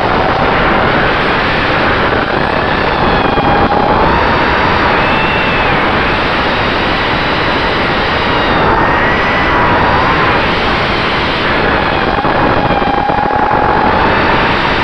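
FPV racing quadcopter's electric motors and propellers whining loudly over a rush of air, heard from the drone's own onboard camera; the whine's pitch wavers up and down as the throttle changes.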